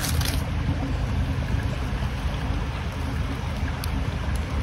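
A steady low rushing noise with no distinct events.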